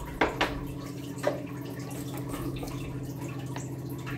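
Steady low hum with a few light clicks in the first second and a half.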